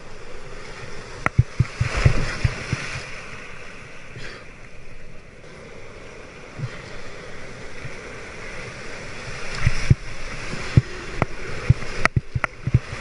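Breaking surf and whitewater foam rushing and splashing around a surf kayak, with paddle strokes in the water and sharp splashes and knocks. There is a strong surge about two seconds in, and a dense cluster of sharp hits near the end.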